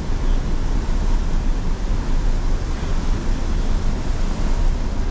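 Steady rush of river water, with wind buffeting the microphone in a low, uneven rumble.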